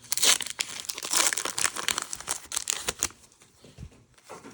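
Foil Pokémon booster pack wrapper being torn open and crinkled, a dense crackling for about three seconds that then dies down to faint handling.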